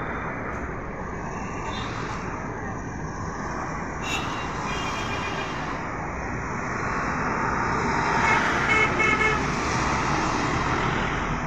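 Road traffic running past, with a vehicle horn tooting: a brief toot about four seconds in and a cluster of several short, louder honks around eight to nine seconds in.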